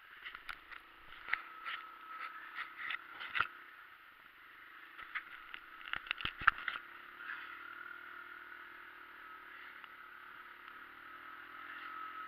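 ATV (four-wheeler) engine running at steady speed while towing, heard from the rear rack, with clusters of rattling clicks and knocks during the first few seconds and again about six seconds in.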